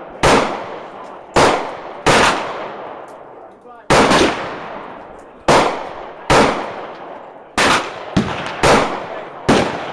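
Glock 27 .40 S&W pistol firing a string of about eleven shots at an uneven pace, roughly one a second, each crack followed by a short echo. The shots are cycling with no stoppages.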